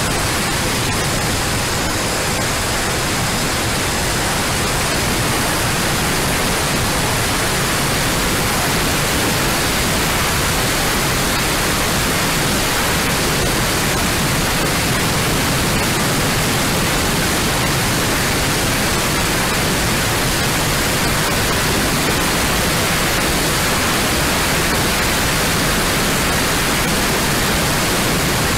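Steady rushing noise of a model A-10's twin 70mm electric ducted fans and the airflow in flight, picked up by the onboard FPV camera's microphone and carried over the analog video link. It stays at an even level throughout, with faint high steady tones in the hiss.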